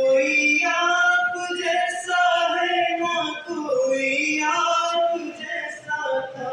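Naat recitation: an Islamic devotional poem sung unaccompanied, in long held notes that slide between pitches.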